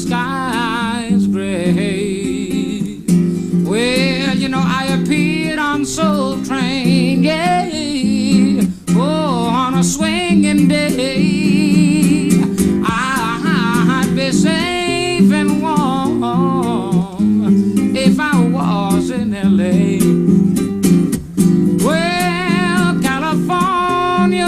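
Live solo acoustic guitar music: chords played steadily underneath, with a melodic line full of vibrato wavering above them and no lyrics.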